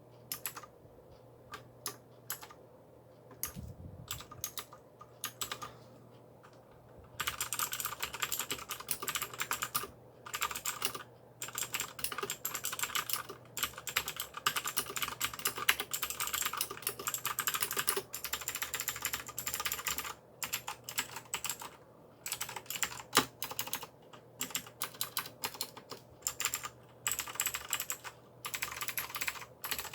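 AULA mechanical keyboard with clicky blue switches being typed on: scattered single key presses for the first several seconds, then fast, continuous typing with brief pauses.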